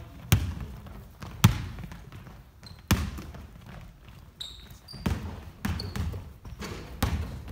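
A basketball bouncing on a hardwood gym floor, with a sharp, echoing impact every second or so at an uneven pace, as players dribble and pass. A few short high squeaks of basketball shoes on the floor come in the middle and near the end.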